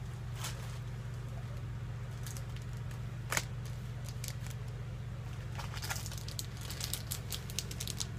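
Plastic bags of model-kit sprues crinkling and clicking as they are handled, with one sharper click about a third of the way in and a run of crackles near the end, over a steady low hum.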